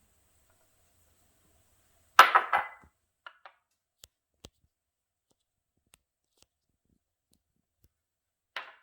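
Kitchen utensils and containers being handled: a sudden loud rattling clatter about two seconds in, then a few light clicks and taps, and another short clatter near the end.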